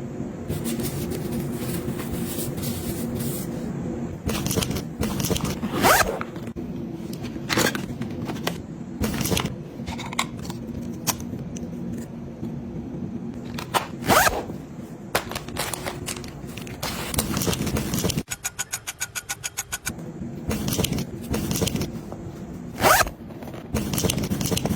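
Zippers being pulled and items being handled: scraping and zipping with many sharp clicks and knocks, and about a second and a half of rapid, even clicking a little over two-thirds of the way in.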